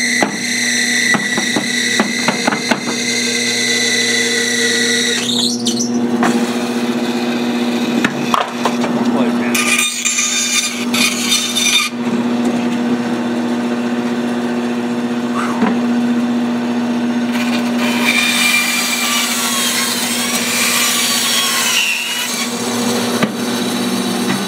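Bandsaw running with a steady hum as its blade cuts through a thick chestnut board along a curved line, with the wood rasping in the cut. The cutting sound eases off near the end as the board clears the blade.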